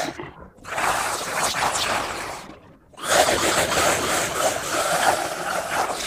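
Female monster attack sound effect: harsh, raspy, aggressive vocal cries in two long bursts. The first starts about half a second in and lasts about two seconds; the second begins about three seconds in and goes on.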